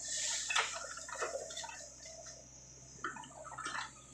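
Soil and clods falling from a Sany SY55C mini excavator's bucket: an irregular patter of crackles and soft thuds that starts suddenly and lasts about two seconds, with a second shorter patter about three seconds in. The excavator's diesel engine hums low and steady underneath.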